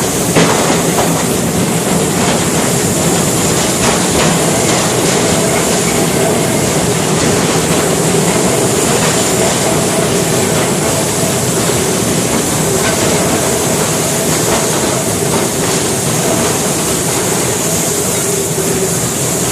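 Narrow-gauge train running steadily along the track: a continuous rumble of wheels on rails with faint clicking over the rail joints.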